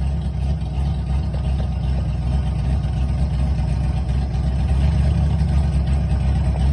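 Drift car's engine idling steadily, a continuous low rumble.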